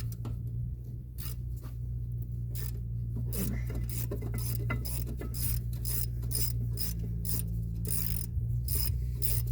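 Repeated metallic scraping and clicking as a rusted rear brake caliper bracket on a Subaru Impreza is rocked back and forth on its seized top bolt, working the rust loose. A steady low hum runs underneath.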